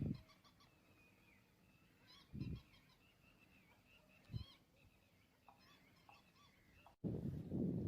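Birds calling faintly in short, repeated chirping phrases, with three dull low thumps spaced through it. About seven seconds in it cuts abruptly to a loud low rumbling noise.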